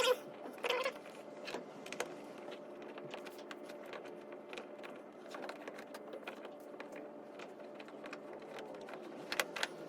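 Scattered clicks and light knocks of screws and hand tools being worked on a plastic kayak seat base, over a steady hum.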